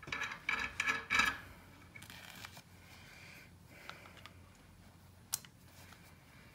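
Faint handling of metal tools, with light scraping and small clicks, and one sharp click about five seconds in.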